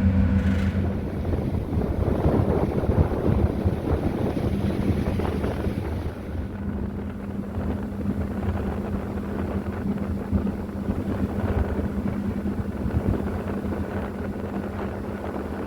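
Ferry Island Nagalis under way: a steady low engine drone under a constant rush of wind on the microphone and moving water.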